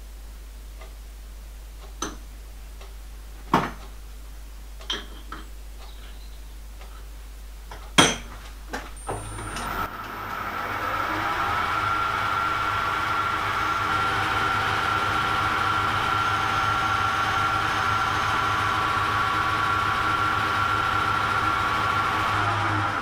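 Metal lathe started about nine seconds in, its motor whine rising as the chuck spins up to speed, then running steadily, and slowing down just before the end as it is switched off. Before it starts there are a few sharp metal clicks and knocks as the work is handled in the chuck.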